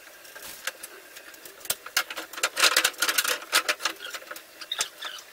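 Irregular clicks, knocks and scraping of wooden boards being handled on a steel-framed wooden deck, densest between about two and a half and three and a half seconds in.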